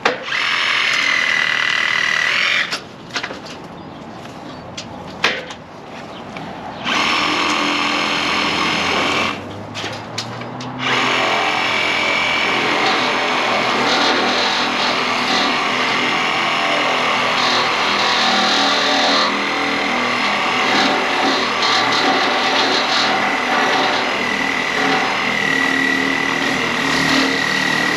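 Electric power saw cutting tree limbs, its motor whining high. It runs in two short spells and then one long unbroken spell.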